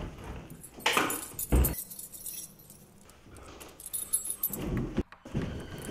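Rustling and bumping of two people scuffling, in two short bursts about a second in, then a quieter stretch and more scattered movement noise.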